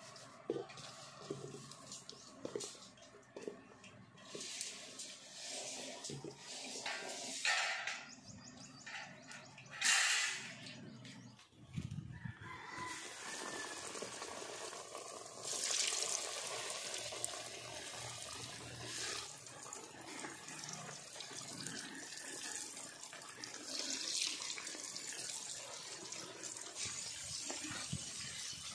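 Chicken legs rustling and knocking as they are tossed in flour in a stainless steel bowl. About twelve seconds in, this gives way to a steady sizzle of chicken deep-frying in hot oil in a wok.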